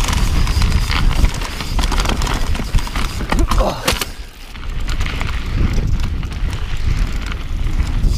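Wind rumbling on the microphone of a camera riding on a mountain bike down a rough dirt singletrack, with tyre noise and repeated knocks and rattles of the bike over the ground. The rumble drops briefly about four seconds in.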